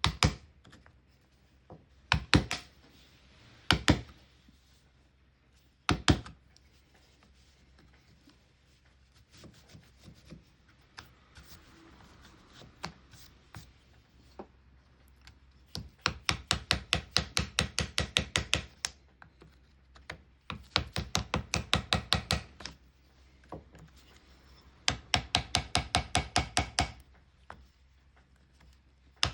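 Hand chisel being struck with a hammer to cut a small recess in wood: a few single hard blows, some light scattered taps, then three quick runs of rapid even taps with a faint metallic ring.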